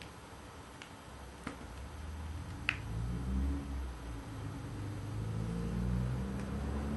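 Folding picture cube handled and folded, its blocks clicking together three times in the first three seconds, the last click the sharpest. Underneath, a low rumble grows louder from about two seconds in.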